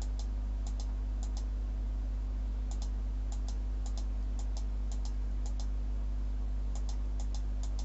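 Computer mouse button clicking repeatedly, often in quick pairs, as checkboxes in a software list are unticked one after another, over a steady low electrical hum.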